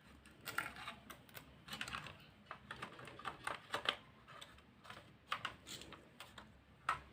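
Keys on a laptop keyboard being pressed in an irregular run of light clicks.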